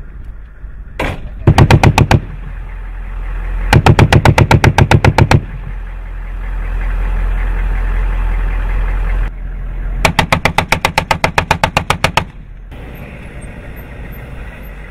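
.50 caliber machine gun firing three bursts at roughly eight rounds a second: a short burst about a second and a half in, a longer one around four seconds, and another about two seconds long near ten seconds. Between the bursts a Humvee engine runs, growing louder.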